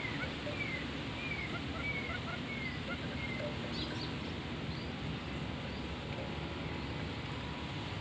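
A bird calling: a string of short, falling whistled notes, about two a second, that stops about three and a half seconds in, with a few faint higher chirps around four seconds in, over a steady low background noise.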